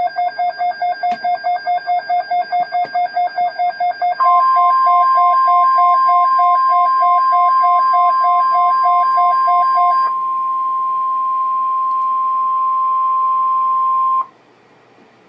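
Emergency alert tones from a NOAA Weather Radio broadcast: a rapid beeping of about seven beeps a second, joined about four seconds in by the loud, steady 1050 Hz warning alarm tone. The beeping stops partway through, and the alarm tone holds for about ten seconds, then cuts off abruptly. The tone signals the start of a severe thunderstorm watch alert.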